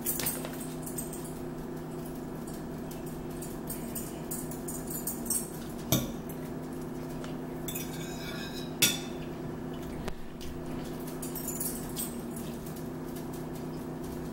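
Metal forks clinking and scraping on plastic plates as people eat, with a few sharper clinks midway, over a steady low hum.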